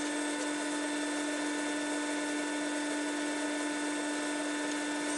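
SawStop 1.75 hp table saw running steadily with its blade spinning, no change in pitch or load, so no cut is being made.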